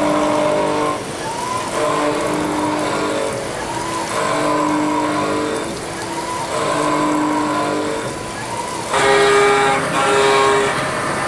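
Centroid A560 5-axis CNC machine porting a cylinder head under flood coolant: the cutter and axis drives whine in repeated passes of about a second and a half, coming back every two to three seconds. About nine seconds in the whine turns louder and harsher.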